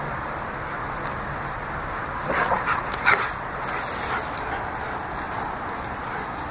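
Two white German Shepherds play-fighting, one giving a short run of barks and yips about two to three seconds in, with a smaller call a second later.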